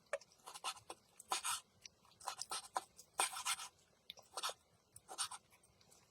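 Cutlery scraping and rubbing on a plate in short irregular strokes while cooked steak is cut and eaten.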